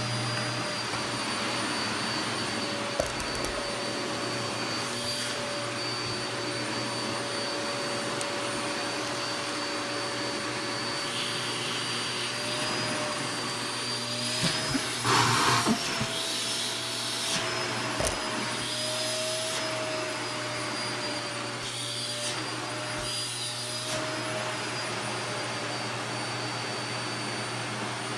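Household vacuum cleaner running steadily, its motor whining over the rush of suction, with a brief louder stretch about halfway through.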